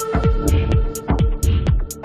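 Background electronic music with a steady kick drum about twice a second and crisp hi-hat ticks between the beats.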